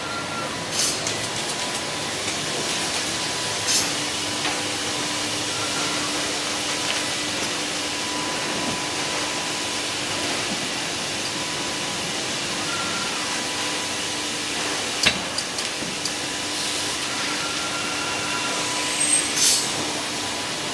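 Sergiani Bürkle door-blank press line running, a steady industrial machine noise with faint steady hum tones. Several short sharp hisses and clicks break through it, the loudest about two-thirds of the way in and near the end.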